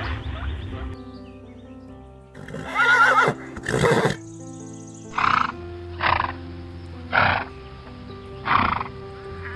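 Horse whinnying, a long call with a quavering pitch, followed by a shorter burst and then four short calls spaced about a second apart, over a background music bed of steady held tones.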